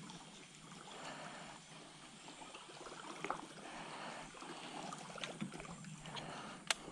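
Faint water trickling and lapping around a wooden log canoe on a narrow stream, with a few light clicks and one sharper click near the end.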